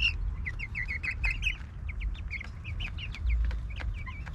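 A flock of young chickens peeping while they feed, a steady run of many short, high calls, now and then overlapping, with a few soft taps among them.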